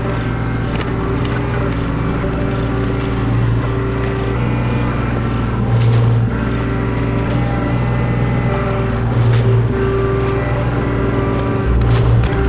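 A motor engine running steadily, swelling louder for a moment several times, about every two to three seconds.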